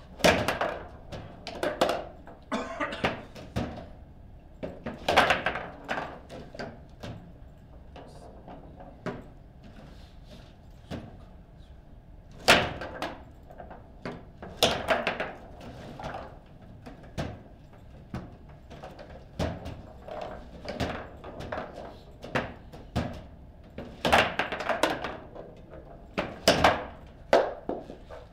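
Foosball table in play: irregular flurries of sharp knocks and bangs as the ball is struck by the plastic figures and the rods are slammed and spun, with short quiet gaps between rallies.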